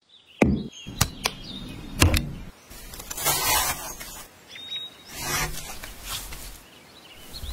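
Knife cutting through a whole pineapple on a bamboo cutting board. A few sharp knocks on the board in the first two seconds, then two longer sawing strokes through the rind and flesh.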